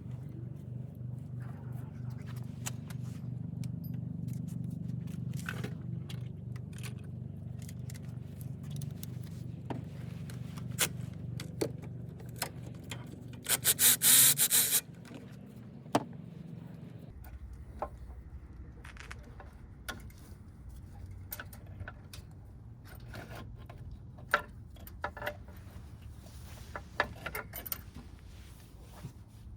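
Hand tools clicking, knocking and scraping on engine parts, with one loud buzzing burst of about a second and a half around the middle, over a steady low hum.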